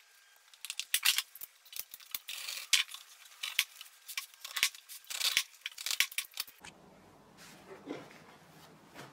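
Old upholstery fabric being pulled and torn off a wooden seat board by hand, with a rapid run of sharp clicks and scratchy tearing. Near the end the sound changes to a softer rubbing as the padded seat slides over the wooden bench.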